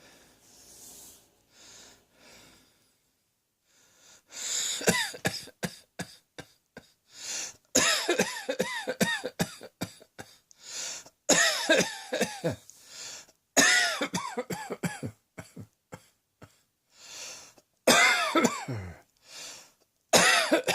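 A person coughing in repeated fits. About four seconds in, the coughing starts, and it comes in clusters of several rapid, voiced coughs with short pauses between them.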